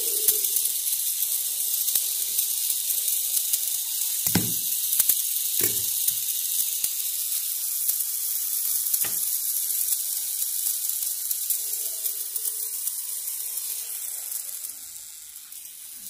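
Antique alarm clock movement running down with its anchor (escapement) removed: the gear train spins freely as the mainspring unwinds, a fast continuous whirr that quietens near the end as the spring nears unwound. A few handling knocks come in between.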